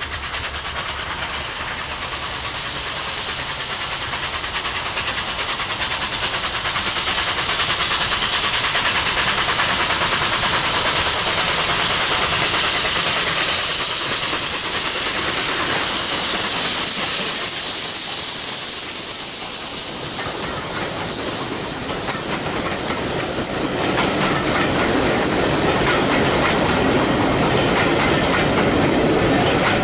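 Two steam locomotives double-heading a passenger train approach and pass with a steady loud steam hiss, growing louder over the first several seconds. Near the end the coaches roll by with wheels clattering on the rails.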